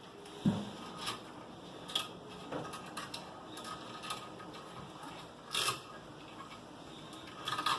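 Hands handling an engine wiring harness: scattered sharp plastic clicks and light rustling from the conduit and cable ties, with a dull knock about half a second in.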